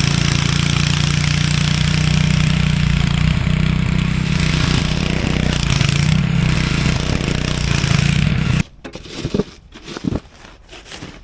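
Craftsman 5/24 snowblower's engine running steadily, then shut off abruptly about eight and a half seconds in. A few short knocks follow.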